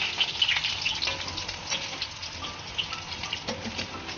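Dal pakoras (lentil fritters) sizzling in hot oil in a kadai, a dense fine crackling that eases slightly over a few seconds, the fritters freshly turned to fry their other side.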